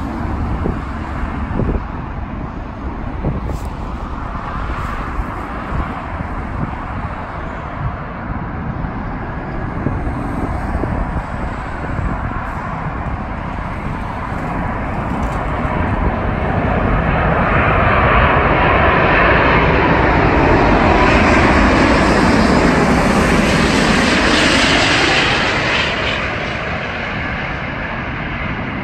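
British Airways Airbus A380 on final approach, its four Rolls-Royce Trent 900 engines growing loud over several seconds as it passes close, the pitch of the engine noise sweeping as it goes by, then fading. Steady road traffic runs underneath.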